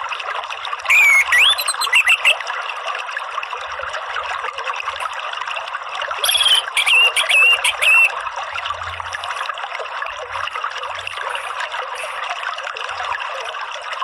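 Steady trickling water under two short bursts of whistled, gliding song from an orange-headed thrush, about a second in and again around six seconds in.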